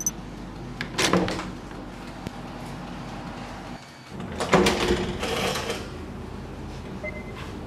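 A door latch clicking about a second in, then a door being pushed open a few seconds later, over a steady low hum.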